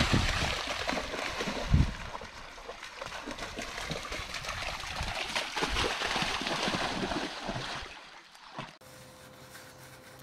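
A dog splashing as it runs and jumps through a shallow creek, water churning, with one sharp splash about two seconds in. Near the end it gives way to a quiet room with a faint steady hum.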